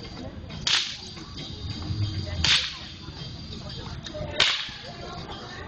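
Three sharp swishes, like something whipped fast through the air, about two seconds apart, over faint outdoor background noise.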